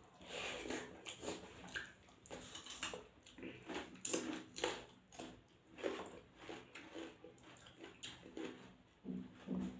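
Close-miked chewing and wet mouth smacking of a person eating a handful of rice and goat curry: a steady run of short, sharp smacks and clicks. Near the end a low, pulsing hum sets in, repeating two or three times a second.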